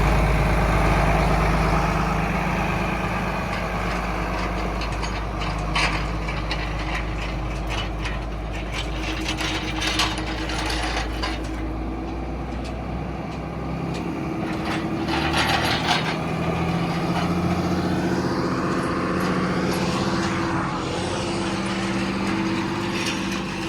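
John Deere 4640 tractor's six-cylinder diesel engine running steadily under load while pulling a do-all field conditioner, with a few brief rattles and clanks from the implement. The engine note climbs slightly about halfway through.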